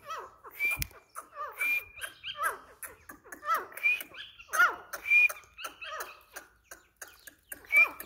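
White teetar (francolins) calling: a run of short chirping calls, with a clear high note recurring about once a second among curved lower chirps.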